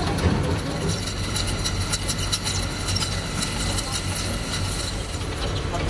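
Large lathe turning a steel tube while the tool takes a cut: a steady low machine hum with many small ticks and clicks over it.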